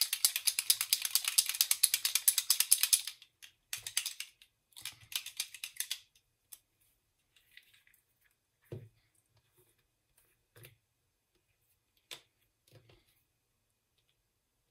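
A small bottle of Cuiloa green ink (Verde Hoja) shaken hard, a mixing ball rattling inside in fast, even clicks for about three seconds, then in two shorter spells. A few scattered light clicks follow.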